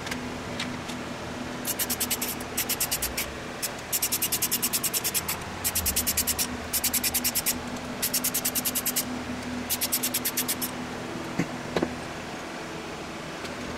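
Socket ratchet clicking in quick runs of about ten clicks a second, seven runs one after another, as bolts on the Cummins 4BT's front timing case are turned. Two sharp knocks follow near the end.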